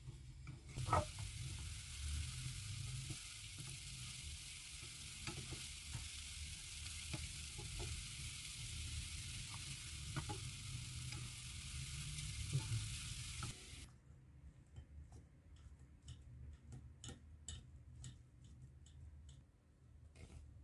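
Diced onion sizzling in oil in a nonstick frying pan while a slotted wooden spatula stirs it, scraping and knocking on the pan. The sizzle starts about a second in and cuts off suddenly about fourteen seconds in, followed by a string of light scrapes and taps of the wooden spatula on a metal sieve.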